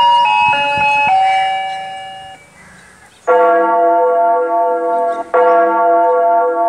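Church chimes played from a tower's horn loudspeakers: a tune of single ringing bell notes that fades out about two seconds in, then, after a short lull, two tolling bell strokes about two seconds apart, each ringing on until the next.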